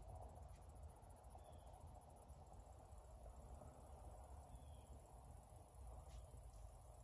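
Near silence: faint woodland ambience with a faint, high, rapidly pulsing insect trill that steadies after the first couple of seconds.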